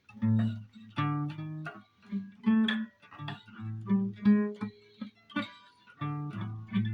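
Instrumental guitar music: chords picked and struck one after another in a loose rhythm.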